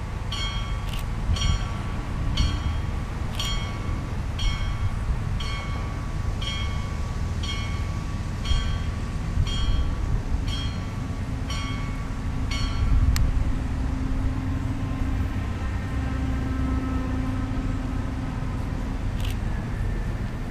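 A warning bell dings about once a second and stops about two-thirds of the way through, over the low, steady running of a Siemens Desiro diesel railcar standing at a platform. After the bell stops, a steady hum from the railcar comes up.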